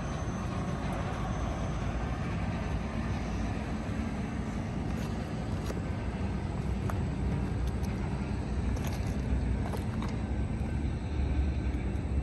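Steady low rumble of road traffic crossing the bridge overhead, with a few faint ticks.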